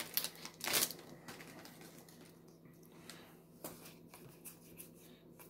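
Paper-and-foil rustling of a Magic: The Gathering booster pack and its cards being handled, louder in the first second, then faint flicks and slides of cards being leafed through, with another brief rustle a little past the middle.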